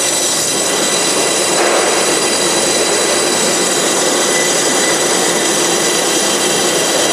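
Horizontal-blade bandsaw (Forrest Manufacturing Model 480i) running with a 1-inch, 3-tooth-per-inch hook-tooth blade cutting through crate packing foam as the table feeds the block forward: a loud, steady noise with several high whining tones over it.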